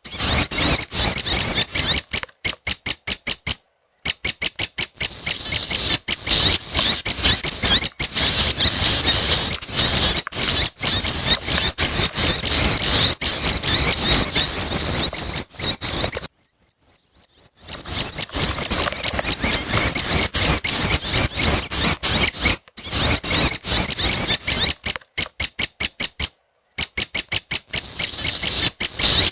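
Young prenjak (prinia) calling: rapid, continuous strings of high, squeaky chirps, broken by a few brief pauses.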